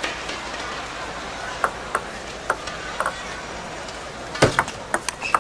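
Table tennis ball clicking: a few spaced single ticks, then a quick run of sharp clicks of ball on racket and table as the serve is played and returned. A low murmur of an arena crowd runs underneath.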